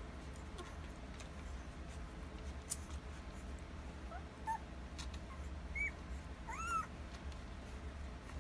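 Week-old Alaskan Malamute puppies nursing, giving a few short, high, mewing squeaks; the loudest is a rising-then-falling squeak near the end. Small clicks of suckling and a steady low hum run underneath.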